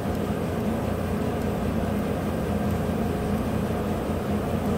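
2015 GMC Sierra's 5.3 L V8 idling, a steady low rumble.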